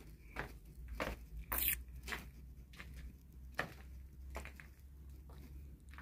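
Footsteps of a person walking, irregularly spaced, with a sharper scuff about one and a half seconds in, over a steady low rumble.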